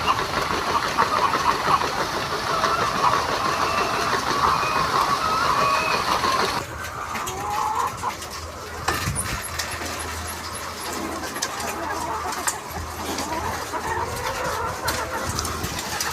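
A flock of chickens clucking and chattering. The sound is dense for the first six or so seconds, drops abruptly, then carries on thinner, over a steady low hum.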